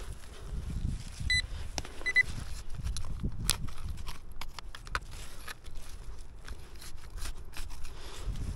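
Digging in earth with a hand tool: irregular knocks and scrapes. Two short, high electronic beeps sound close together, about a second in.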